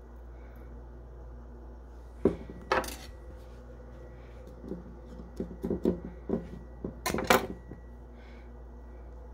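Kitchen clatter of a knife and a drinking glass on a countertop while a lime is cut and put in the glass: two sharp knocks about two to three seconds in, a run of softer taps in the middle, and a louder clatter near the end.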